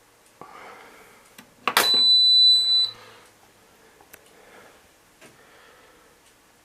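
A sharp click and then a single high electronic beep of about a second from the Hotpoint washing machine's control panel. Faint rustling comes before it, and faint ticks follow about once a second.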